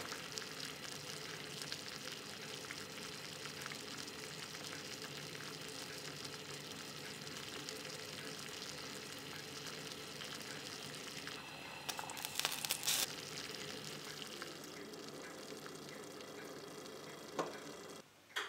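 Water heating in a metal pot over a gas burner: a steady hiss and fizz of the water coming up toward the boil, mixed with the burner flame. About twelve seconds in there is a brief burst of louder clicks, and the sound cuts off sharply just before the end.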